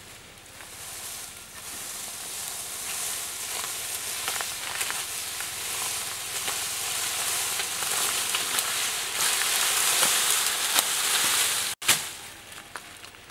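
Footsteps crunching and crackling through thick dry eucalyptus leaf litter, growing louder as the walker comes closer, then cutting off abruptly near the end.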